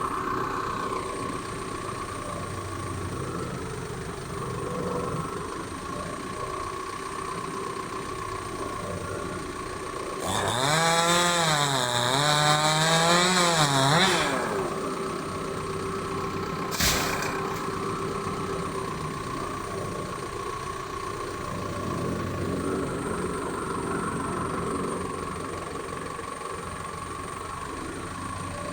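Chainsaw revved hard for about four seconds midway, its pitch sagging as it bogs into wood and then rising again, over a steady engine running in the background. A single sharp knock follows a few seconds later.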